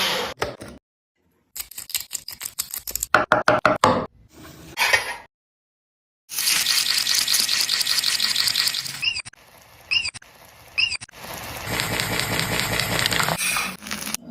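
Kitchen sounds cut together: a quick run of clattering knocks from utensils, then stretches of steady hiss from food cooking, with abrupt cuts to silence between clips.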